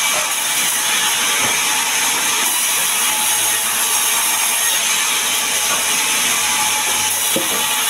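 Large vertical band saw ripping a sengon (albizia) log lengthwise: the blade cuts through the wood with a steady, loud, high hiss and a few held tones.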